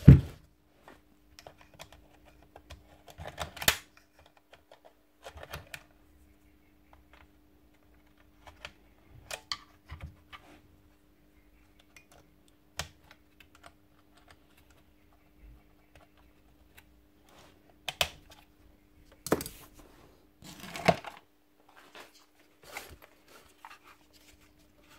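Scattered clicks, taps and knocks of hand tools and the metal and plastic parts of a Bosch GSH 11 E demolition hammer being handled and fitted together, loudest at the start and again about two thirds of the way in, over a faint steady hum.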